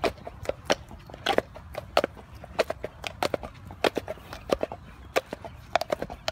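Shire horses walking on a hard farm track, their hooves clip-clopping: irregular sharp clops, a few each second, from more than one horse.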